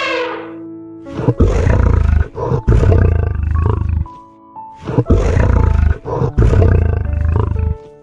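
A lion roaring in two long, deep, rough bouts, each about three seconds, the first starting about a second in and the second just past halfway, over steady background music. The tail of an elephant's trumpet call fades out at the very start.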